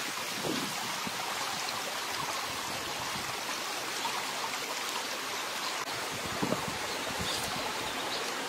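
Small stream running steadily over rocks, a constant rush of water.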